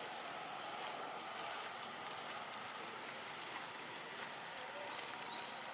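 Steady outdoor background hiss with a short, faint high chirp near the end.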